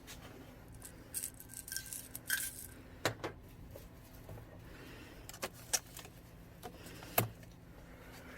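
Hard objects clinking and rattling as they are handled, then four sharp separate knocks.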